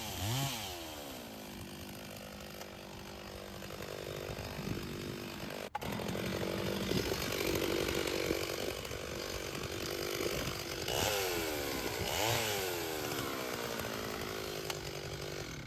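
Two-stroke Stihl chainsaw bucking black cherry and mulberry logs. The engine revs up and down between cuts and is held at high revs while cutting. The sound drops out sharply for an instant about six seconds in.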